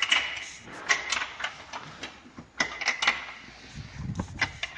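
Irregular metallic clicks and clanks of hand tools working the upper mounting nut of a Range Rover's rear shock absorber as it is undone.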